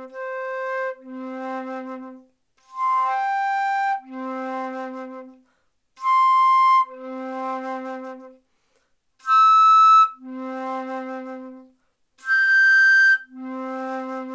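Concert flute playing a harmonics exercise on the low C fingering: each overblown harmonic is followed by the low C, climbing the series through second C, G, third C, E and high G. Every note is held about a second with short breaths between.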